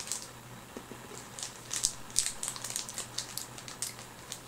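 A person chewing small candies, crunching them: a run of irregular crisp crunches starting about a second and a half in.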